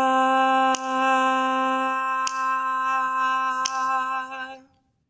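A woman's voice holding one sung "ta" on a single steady pitch for about four slow beats, the long last note of a chanted rhythm-dictation pattern. A sharp click marks each beat, and the note stops shortly before the end.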